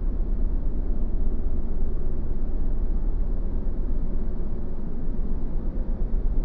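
Sci-fi alien-landscape ambience: a steady, low, rumbling drone with a rough noisy texture and a faint held tone above it.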